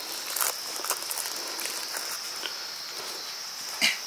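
A steady high buzz runs under scattered light clicks and taps, with one louder knock near the end.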